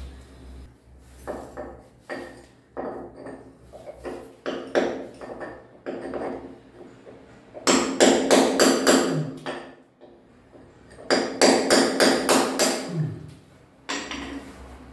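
Hammer striking a chisel to chip out ceramic tile: scattered single blows at first, then two quick runs of several blows each about eight and eleven seconds in.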